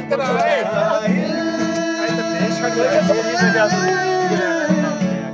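Men singing together to a strummed acoustic guitar, the voices holding long notes over a steady strumming rhythm.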